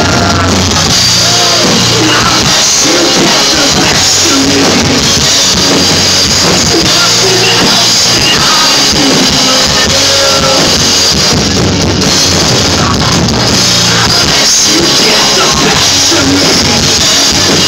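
Live rock band playing at full volume, with drums, guitars and faint vocals, heard through a phone's microphone and heavily compressed.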